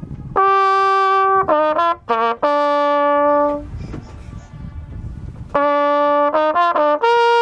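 Flugelhorn played loudly in two short signal phrases, each a held note, a run of quick notes and another held note, with a pause of about two seconds between the phrases.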